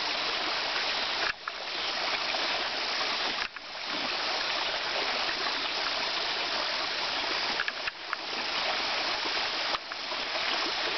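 Shallow stream running over rocks: a steady rush of flowing water, which drops away briefly and comes back about four times.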